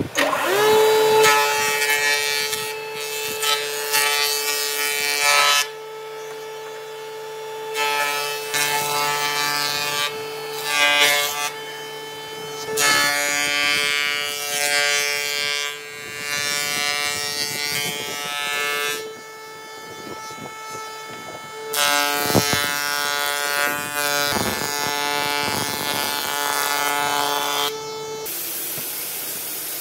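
Industrial jointer starting up, its cutterhead spinning up to a steady whine, then a board fed over the cutterhead in several passes, each pass a loud noisy cut lasting a few seconds.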